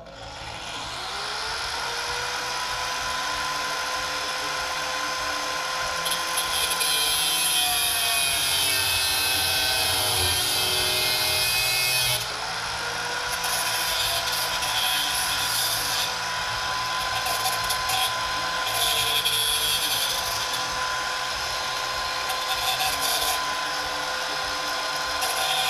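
Electric angle grinder spinning up, then its disc cutting through an M6 steel threaded rod held in a vise, a high whine with harsh grinding noise. The motor's pitch sags as the disc bites, around nine to eleven seconds in, and the sound drops abruptly about twelve seconds in before the grinding resumes.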